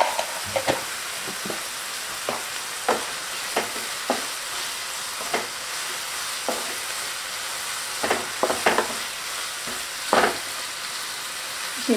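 Vegetables sizzling in a non-stick wok as a wooden spatula stirs and tosses them: a steady frying hiss broken by irregular scraping strokes, several in quick succession near the end.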